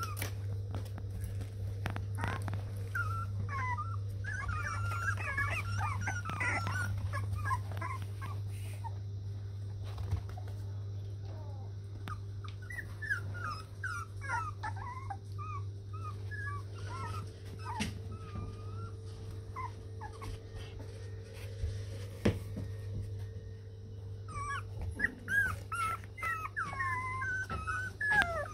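A litter of 3.5-week-old Border Collie puppies whimpering and squeaking in short, wavering high-pitched cries that come in three spells. A steady low hum runs underneath, with scattered light taps and scratches.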